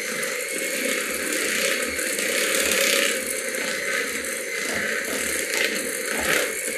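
Electric hand mixer running steadily, its twin beaters working through thick brownie batter in a bowl.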